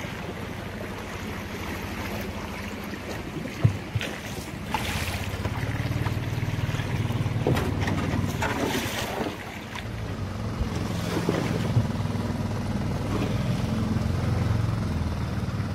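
Shallow river rapid rushing and lapping around a wooden boat being poled upstream, with wind rumbling on the microphone. A few sharp knocks and splashes from the pole come in, the loudest about four seconds in.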